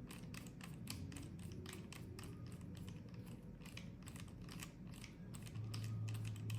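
Rapid light clicks and ticks from a small plastic tracker and a small screwdriver being handled during reassembly. A low steady hum comes in near the end.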